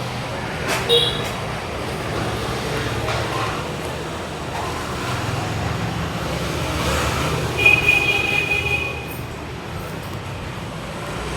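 Steady traffic noise, a low rumble, with two short high-pitched tones: a brief one about a second in and a longer one, about a second long, near eight seconds in.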